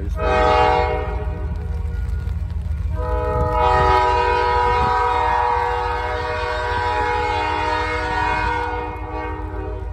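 Diesel locomotive's air horn sounding a chord of several notes as the train approaches. A short blast comes at the start, then a long blast from about three seconds in until near the end, over a steady low rumble.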